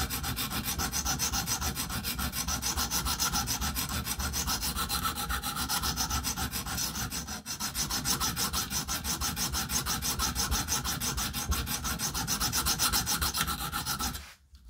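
Coarse sharpening stone on a KME guided sharpening system, stroked rapidly back and forth along the edge of an M390 steel knife blade in a fast, even scraping rhythm, grinding out a chip in the edge. It stops abruptly shortly before the end.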